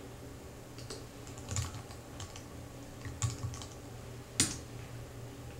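Typing on a computer keyboard: a few scattered keystrokes, with one sharper click about four and a half seconds in, over a low steady hum.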